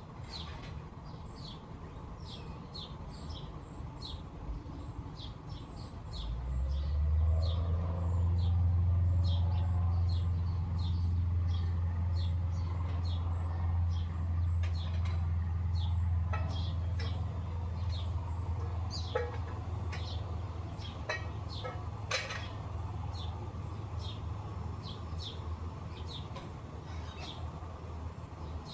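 Small birds chirping, short high calls repeating throughout. A low engine rumble swells in about six seconds in, becomes the loudest sound, and slowly fades.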